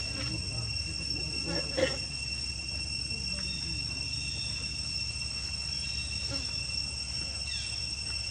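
Steady high-pitched insect chorus, a continuous shrill drone, with one brief louder noise about two seconds in.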